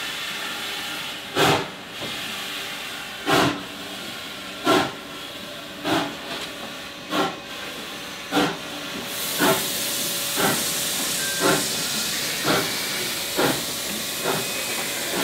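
Victorian Railways K-class 2-8-0 steam locomotive K183 starting a train, its exhaust chuffing in separate beats that quicken from about one every second and a half to about one a second. A steady hiss of steam comes in about nine seconds in.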